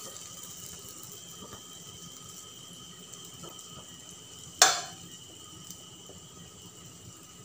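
Urad dal vadas frying in shallow oil in a non-stick pan, the oil sizzling steadily. A single sharp clink about four and a half seconds in.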